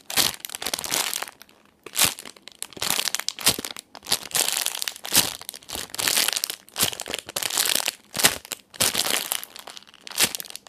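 A clear plastic bag crinkles around a foam Hello Kitty matcha cake-roll squishy as hands squeeze it again and again. It comes in repeated, uneven bursts of crackling with sharp snaps.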